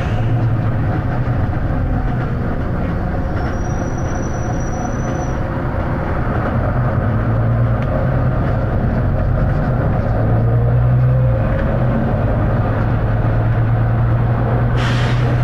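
Volvo B9TL double-decker bus's six-cylinder diesel engine running under way, a steady low drone that rises and falls slightly with the revs. A thin high whine sounds for about two seconds around four seconds in, and a burst of air hiss starts just before the end.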